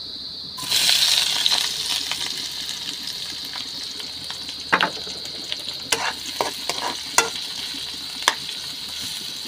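Sliced onions and chopped garlic hit hot oil in a metal wok and sizzle up sharply about half a second in, then fry steadily while a spatula stirs them, clicking and scraping against the pan several times.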